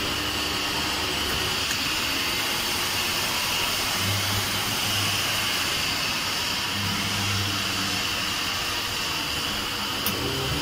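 Hydraulic powder compacting press running: a steady hiss-like noise from its hydraulic pump unit, with a low hum that comes in twice, about four and seven seconds in. A single sharp click near the end.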